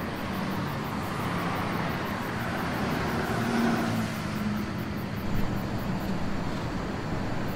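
Steady background noise of distant traffic, with a low hum that swells and fades around the middle and a small click near the end.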